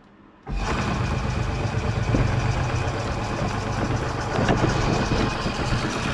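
Homemade metal-cutting bandsaw switched on about half a second in: the temporarily mounted electric motor and the blade start at once and run steadily, with a low hum under a broad mechanical whir. This is the saw's first test run on its mocked-up motor drive.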